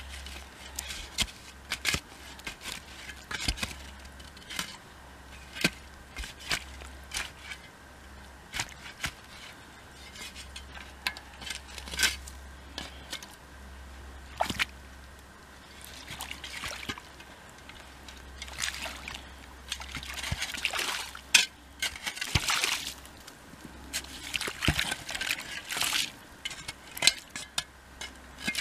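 A shovel digging a water-filled drainage trench through wet soil and snow: repeated short chops and scrapes of the blade, with longer sloppy scooping and splashing bursts in the second half, and water trickling in the trench.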